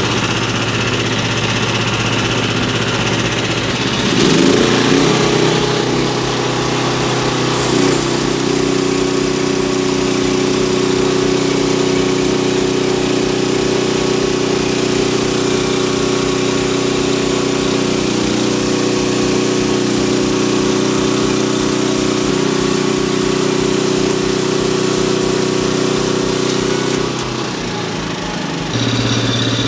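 Portable band sawmill engine idling, then revved up about four seconds in to drive the band blade and running steadily at speed through a cut, before throttling back down to idle near the end.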